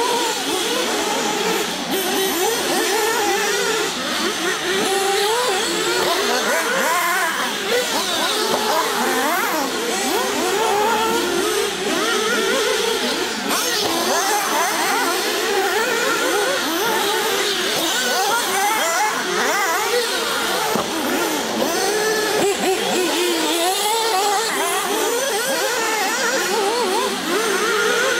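Several 1/8-scale nitro RC car engines running together, their pitch rising and falling continually as they rev up and back off, overlapping one another throughout.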